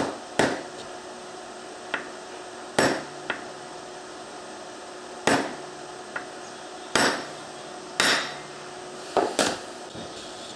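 Claw hammer tapping a small pin into a part held in a bench vise: about a dozen sharp metallic taps at uneven spacing, some in quick pairs, with lighter taps between the harder blows.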